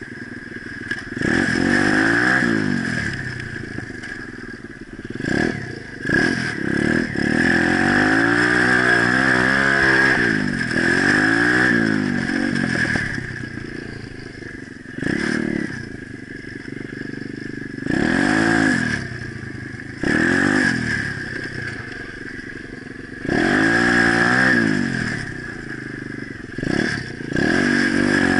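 Pit bike's small single-cylinder engine being ridden hard, revving up and easing off about ten times as the throttle is opened and closed, its pitch rising and falling with each pull.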